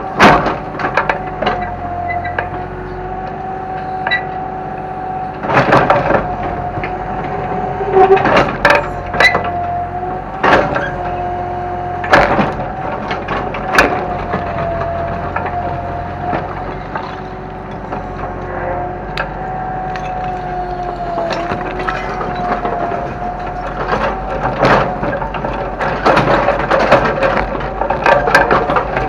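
Kobelco excavator working, its engine and hydraulics running with a steady whine, while repeated cracks and knocks of breaking debris come in clusters.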